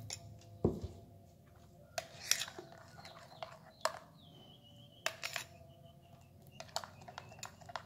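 Metal spoon stirring thin flour batter in a glass bowl, with a low thump just under a second in and scattered sharp clinks of the spoon against the glass.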